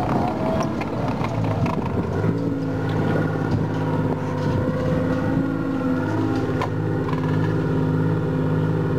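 Engine of a tracked armoured personnel carrier running as it drives across grass, with the tracks clattering; about two seconds in the engine settles to a steady, even note.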